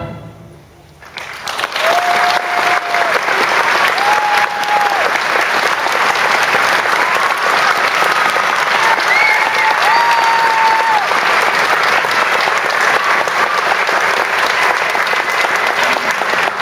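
After about a second's lull, a concert audience breaks into loud, steady applause. A few long, steady-pitched cheering calls rise above it.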